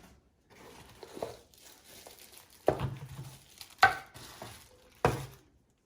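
Packaging being handled while unboxing a coffee maker: paper and cardboard rustling, with three sharp knocks about a second apart in the second half.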